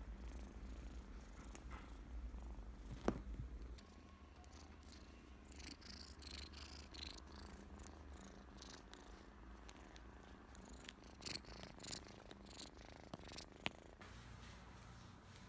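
Kitten purring, a steady low rumble that is strongest for the first four seconds or so and then fades, with one sharp click about three seconds in and scattered faint clicks and rustles afterwards.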